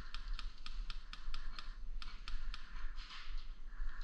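Airsoft gunfire: a run of rapid, sharp clicks, about six or seven a second, with a short break around two seconds in.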